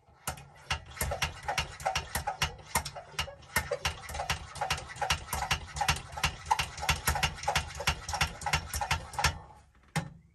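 Hand pump on a pressurized alcohol galley stove being worked in quick strokes, a sharp clicking run of about four strokes a second that stops about nine seconds in, building pressure in the fuel tank.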